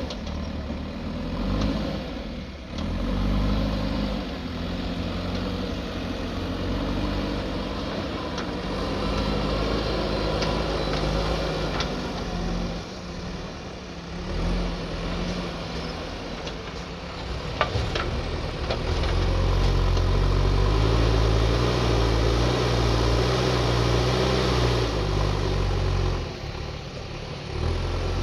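JCB backhoe loader's diesel engine running steadily at work. It pulls harder and louder from about two-thirds of the way through, and a single sharp knock comes just before that.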